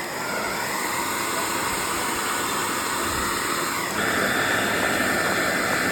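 Hair dryer blowing steadily, a rushing whoosh of air; about four seconds in it gets louder and its whine rises.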